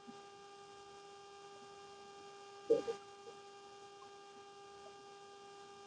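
Faint steady electrical hum made of several fixed tones over light hiss, with one short soft tap about two and a half seconds in.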